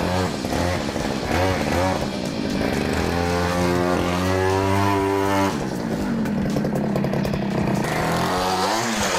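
Go-ped GSR25's small two-stroke engine being revved: a few short throttle blips, then held at high revs for a couple of seconds before dropping back to a low idle, and revving up again near the end.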